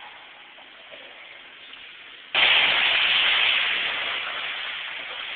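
A child's cannonball jump into a swimming pool: a sudden loud splash about two seconds in, followed by water churning and settling. The splash echoes and fades slowly in the indoor pool hall.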